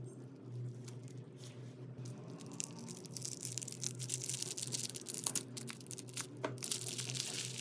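Slime being pressed and worked by hand: many fine clicks and crackles that thicken into a dense, louder crackling about three seconds in. A steady low hum runs underneath.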